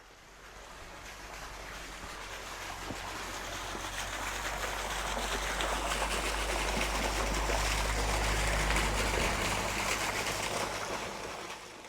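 Running water, an even rushing noise with a steady low rumble beneath it. It swells gradually and fades away near the end.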